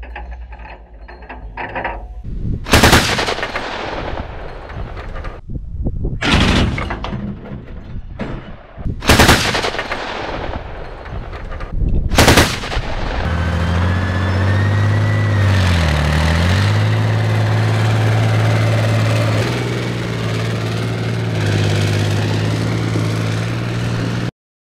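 Infantry fighting vehicle's turret-mounted autocannon firing four short bursts of rapid shots, about three seconds apart. Then the vehicle's engine runs steadily, its pitch dipping briefly and recovering, until it cuts off abruptly.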